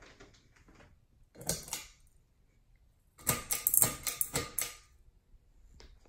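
Ceiling fan pull chains being worked: a short click and ball-chain rattle about a second and a half in, then a longer, louder run of clicks and rattling from about three to five seconds in as the light's pull-chain switch is clicked and the light goes off.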